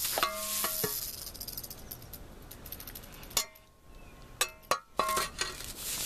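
Steel shovel blade knocking and scraping on concrete, with short metallic rings after the strikes near the start and again around the middle, plus a few sharp knocks.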